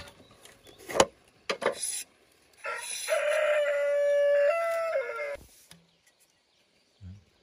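A rooster crowing once, one long call of nearly three seconds that steps up in pitch and drops away at the end. Before it come a few sharp clicks and knocks from bamboo handwork.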